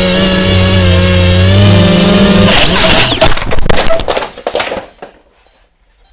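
Parrot Bebop 2 quadcopter's motors and propellers whining steadily, the pitch shifting slightly. About two and a half seconds in, a burst of clattering impacts lasting about two seconds as the drone crashes, after which the motor sound stops.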